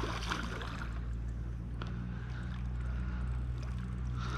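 A steady low motor hum, with a few faint clicks and splashes over it.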